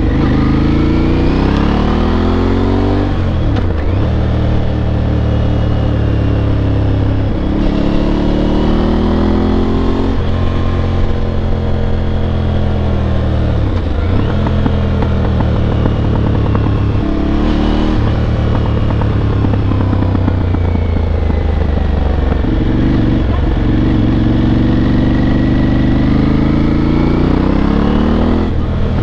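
Aprilia Tuareg 660's two-cylinder engine under way on the road, revs climbing and then dropping sharply at each gear change, several times over as the bike accelerates and eases off.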